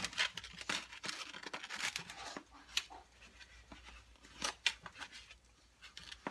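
Plastic sugar container being handled and worked open: irregular clicks, scrapes and rustles of plastic, the loudest about a second in and again around four and a half seconds.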